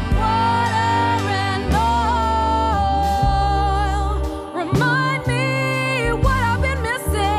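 Band music: a lead melody that bends and wavers in pitch, played over held bass notes and a drum beat.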